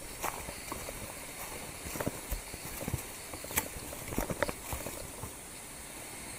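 Footsteps on a leaf-covered forest trail: irregular crunches and knocks of shoes on dry leaves and roots, over a faint steady high hiss.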